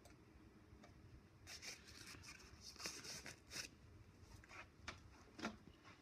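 Faint rustles and clicks of small handling noise over quiet room tone: a quick run of short scrapes about a second and a half in, then a few single clicks near the end.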